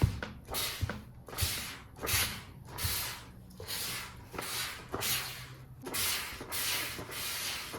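Handheld garment steamer swept back and forth over wrinkled fabric, a rhythmic hissing swish of steam and rubbing with each pass, about two a second, as the wrinkles are steamed out.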